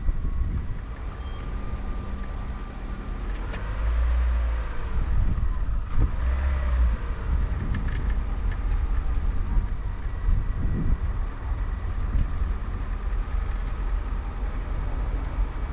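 A car on the move: a steady low rumble of road and engine noise, getting louder about four seconds in.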